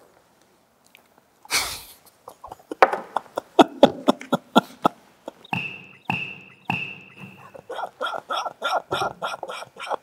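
Red plastic squeaky toy hammer bonking someone on the head: a quick run of sharp taps and clicks, then three short high squeaks about halfway through, followed by fast repeated squeaky pulses.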